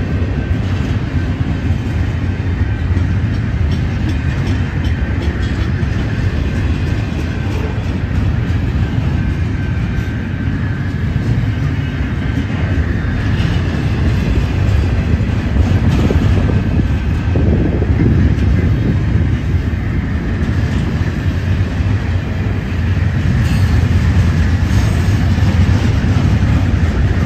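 Double-stack container freight train rolling past close by: a steady, loud rumble of steel wheels on the rails, getting a little louder over the last few seconds.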